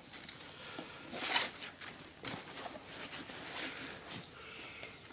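Nylon fabric and webbing straps of a US large ALICE pack rustling as the pack is handled and unstrapped, with a few light clicks.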